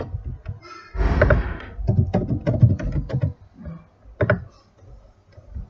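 Typing on a computer keyboard: a heavier clatter about a second in, then quick runs of keystrokes, and a single keystroke a little after four seconds.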